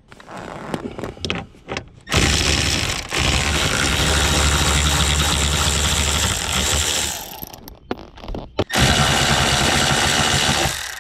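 Power tool running small 7 mm screws out of a plastic steering-column trim panel, in two runs: about five seconds starting two seconds in, then about two seconds near the end. Light clicks of handling come before it.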